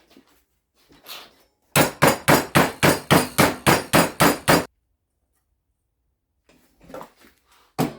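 A hammer striking the Vanagon's sheet-steel body panel in a fast, even run of blows, about five a second for some three seconds. The metal is being bent down to match the body edges. The blows stop abruptly, and a few faint knocks follow near the end.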